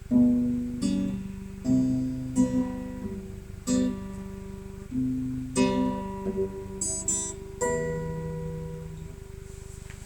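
Acoustic guitar played chord by chord, a strummed or plucked chord about every second, each left to ring and decay. The last chord rings out and fades near the end.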